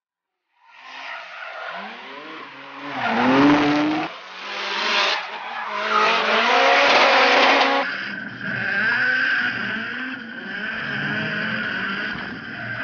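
Drift cars sliding sideways, engines revving hard with the pitch swinging up and down and tyres screeching, loudest in the middle. From about eight seconds the engine note steadies with a high whine, heard through an onboard camera on the hood of a chasing drift car.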